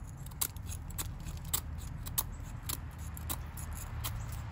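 The steel blade of a cheap Ozark Trail bait knife shaving curls off a stick of wet wood, carving a feather stick: short, crisp scraping strokes, about seven of them, unevenly spaced.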